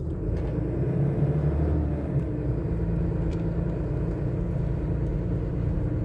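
Car running along the road, heard from inside the cabin: a steady low rumble of engine and road noise.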